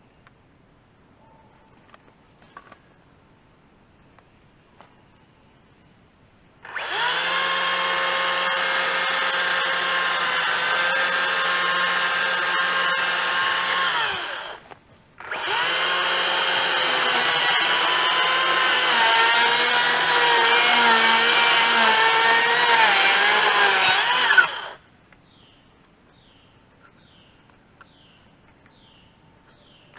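Makita battery-powered chainsaw running in two long bursts of about eight and nine seconds with a short stop between, cutting a small dead tree. Its whine is steady in the first burst; in the second, the pitch dips and wavers as the chain works through the wood.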